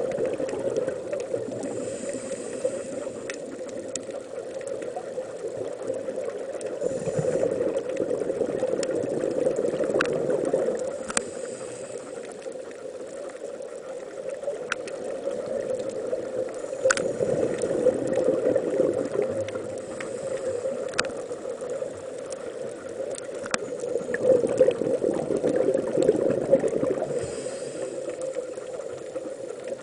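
Underwater sound picked up through a camera housing on a scuba dive: a muffled rushing that swells and fades about every seven seconds, the diver's regulator breathing and exhaled bubbles, with scattered sharp clicks.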